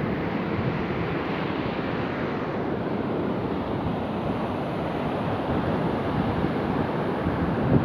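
Sea surf washing onto a beach, a steady rushing noise, with wind buffeting the microphone.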